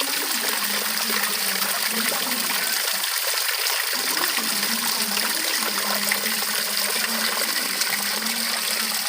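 Water flowing and splashing steadily, a continuous hiss flecked with small drops and patters, with a faint wavering low hum underneath.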